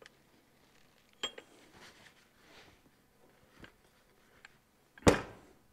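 A Muncie PTO unit's aluminium gear case being handled on a workbench: a sharp metallic clink about a second in and a few faint taps, then a single heavier thud near the end as the unit is set down.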